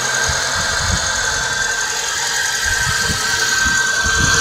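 Nissan Tiida 1.6's four-cylinder engine idling with a steady high-pitched whistle-like howl from the clutch release (throwout) bearing: the bearing is worn, a noise that was cured by replacing the clutch kit.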